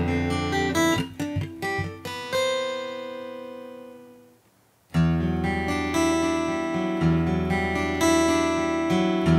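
Taylor 714ce acoustic guitar being played: a few picked notes, then one note rings out and fades to near silence about four seconds in. Chords start again about five seconds in, struck roughly every two seconds and left ringing.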